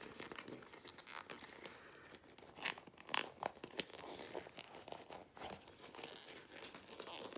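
Faint crinkling and rubbing of vinyl as a zip bag is squeezed and worked by hand to push its corners out, with a few sharper clicks about three seconds in.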